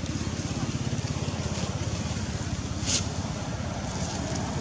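An engine running steadily with a fast, even throb, and a brief sharp click or rustle about three seconds in.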